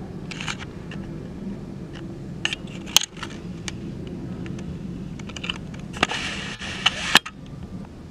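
Camera handling noise: scattered sharp clicks and knocks, then a rustling scrape with clicks about six to seven seconds in, over a low steady rumble.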